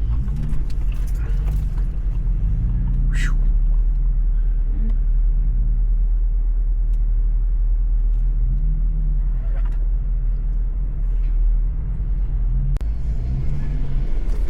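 2015 Jeep Wrangler Sport's 3.6-litre V6 working off-road, its pitch rising and falling over and over as the throttle comes on and off over a low rumble. Short knocks and creaks of the body and suspension, with a brief squeal about three seconds in.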